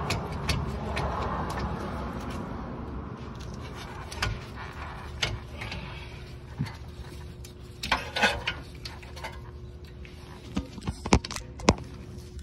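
Rear brake caliper being worked off its mount by gloved hands: a rushing scrape for the first few seconds, then scattered sharp metal clicks and knocks, with a cluster about eight seconds in and several more near the end.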